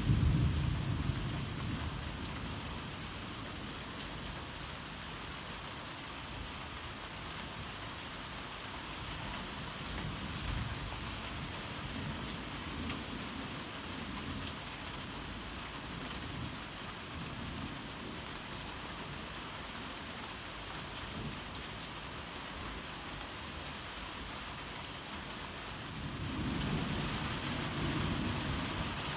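Steady heavy rain falling and pattering, with a roll of thunder fading out over the first couple of seconds. Near the end a low rumble with hiss swells up over the rain.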